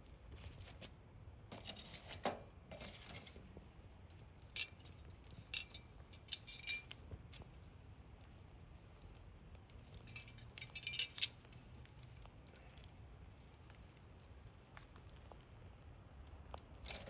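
Hardwood embers crackling faintly, with scattered sharp ticks and pops and a small cluster of them about ten to eleven seconds in.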